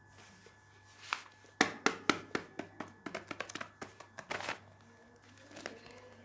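Fidget toys being handled: a quick, irregular run of clicks, taps and crinkles from about a second in until about four and a half seconds in.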